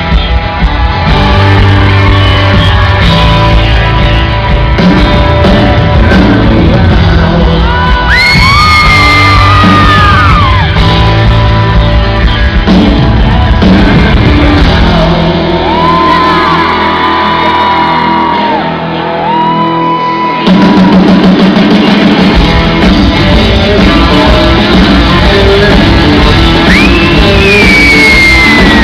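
Live pop-rock band with a lead singer performing a song in a large hall, with high shouted or sung notes over it. The bass and drums drop back for a few seconds, then the full band comes back in loudly about twenty seconds in.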